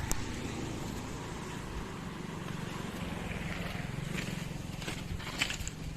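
A backhoe loader's diesel engine running steadily, with a few sharp clicks or knocks near the end.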